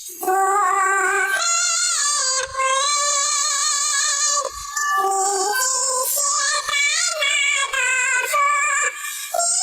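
A bird singing a melodic, voice-like tune with wavering vibrato, in long phrases broken by short pauses.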